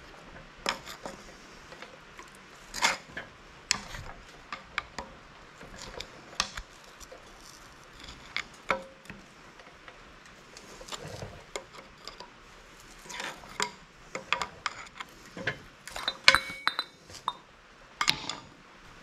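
A pry tool working at the small steel hub cap on a Dana 25/27 front axle hub, giving an irregular run of sharp metallic clinks and scrapes. A tight cluster of louder clinks with a brief ring comes near the end, as the cap comes free.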